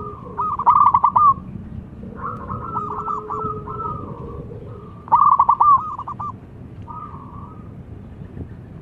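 Young zebra dove (perkutut) singing: two loud bursts of rapid staccato cooing notes about four seconds apart, with softer cooing phrases between and after them.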